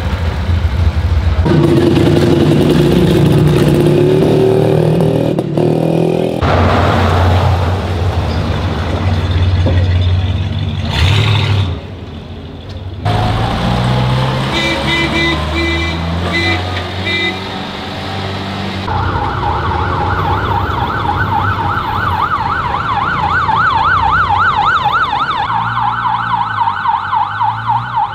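Engines of several vintage vehicles, a motorcycle and a forklift among them, running as they drive past one after another. About two-thirds of the way through, a siren starts up with a rapid up-and-down warble and stays the loudest sound.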